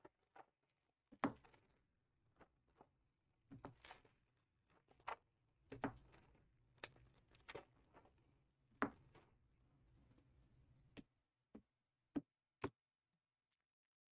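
Faint, scattered clicks, taps and rustles of hands handling sealed trading-card boxes and packs on a table, with a brief louder rustle about four seconds in.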